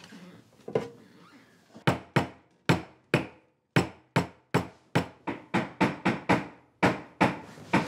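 A claw hammer tapping the plastic handle of a screwdriver used as a chisel, driving it into a small piece of wood on a tabletop. A single knock comes near the start, then from about two seconds in a steady run of sharp knocks, about three a second.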